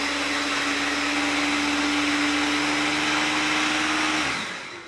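Electric hand blender with a chopper bowl running steadily, grinding walnuts, sunflower seeds and coconut into a paste. Near the end the motor is switched off and winds down.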